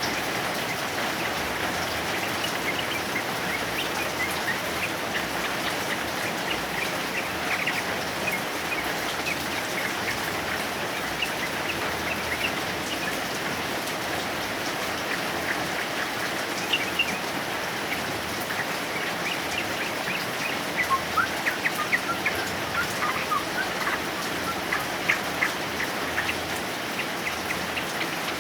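Steady heavy rain with a male yellow-vented bulbul (trucukan) singing in short chirping phrases over it, busier in the second half.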